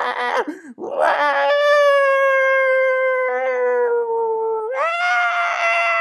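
A person's voice howling a long, high 'ooo', standing in for the spell's sound effect. It starts in short broken bursts, then holds one long note that sinks slowly and glides up about three-quarters of the way through.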